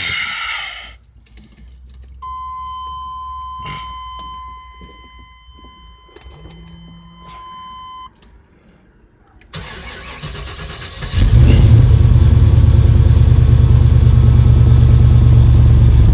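A steady high tone sounds for about six seconds. Then the 1996 Chevy 350 Vortec V8 cranks for about a second and a half and catches on a cold start. It settles into a loud, steady idle.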